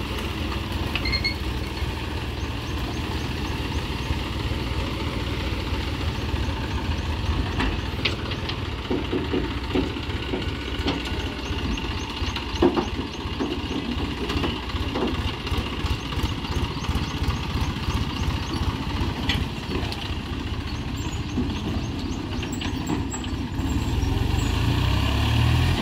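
Tractor's diesel engine running steadily with a rapid low throb. There is one sharp knock about halfway through, and the engine grows louder near the end.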